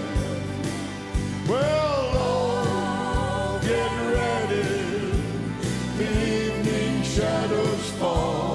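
Live gospel band and singers performing: a sung melody with vibrato over a steady drum beat, bass and piano.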